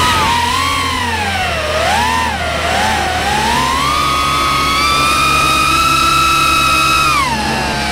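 Brushless motors and propellers of an Eachine Martian II FPV quadcopter whining in flight, the pitch rising and falling with the throttle. It climbs to a high steady whine held for about three seconds, then drops near the end. Wind buffets the camera's uncovered microphone.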